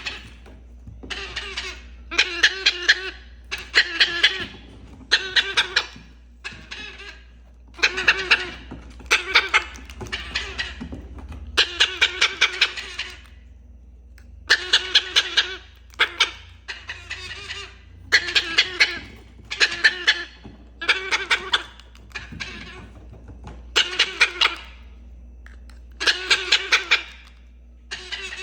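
Parrot imitating human laughter: short bouts of rapid 'ha-ha-ha' notes, repeated over and over with brief pauses between.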